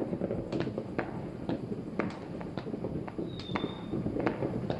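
Fireworks and firecrackers going off all over a city, a constant crackle with frequent sharp bangs at irregular intervals. A brief high whistle sounds about three seconds in.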